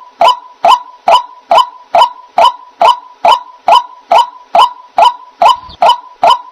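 White-breasted waterhen call: a short note repeated very evenly, about twice a second, with a faint steady tone underneath. It is a looped calling recording of the kind played to lure waterhens to a trap.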